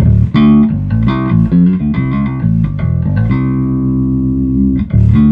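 Electric bass played loudly through an Aguilar TH500 amp head: a run of picked notes, with one note held for about a second and a half in the middle of the phrase.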